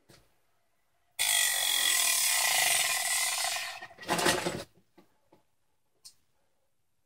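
Homemade mini-motor spin-art rig with a paint-loaded CD: a loud mechanical rasping whir for about two and a half seconds, then a second shorter burst, then a few faint clicks.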